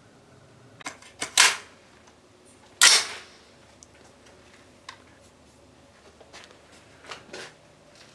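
Two rifle shots from a retro-style AR-15-pattern rifle (AR 601 build), about a second and a half apart, the second with a short echoing tail, with a few fainter clicks and knocks around them.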